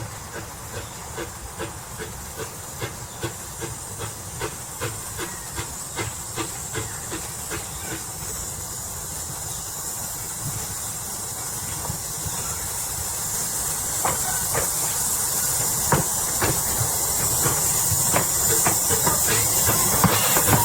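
Edison 4-4-0 steam locomotive hissing steam, the hiss growing steadily louder, with a regular clicking about two to three times a second that thins out after the first half.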